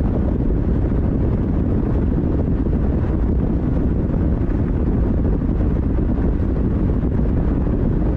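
Steady rumble of wind and road noise from a moving vehicle, with wind buffeting the microphone.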